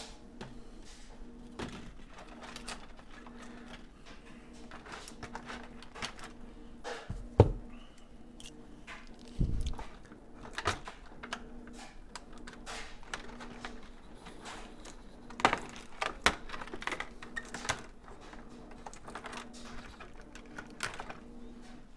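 Hard plastic packaging being handled: irregular clicks, taps and crinkles as small parts are worked free of a clear plastic tray. There is a sharp knock about seven seconds in and a few duller thumps later.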